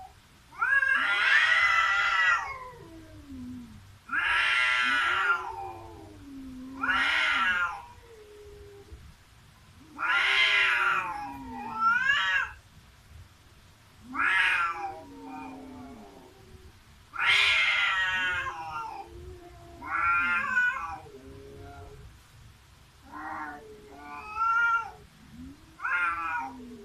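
Cats yowling at each other in a face-off: long, drawn-out, wavering wails, about a dozen of them one after another with short pauses between, the typical caterwauling of a territorial standoff between two cats.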